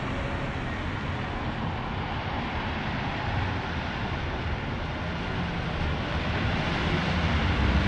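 City street traffic on wet pavement: a steady hiss of tyres on the wet road over a low rumble, growing louder over the last few seconds as cars drive past close by.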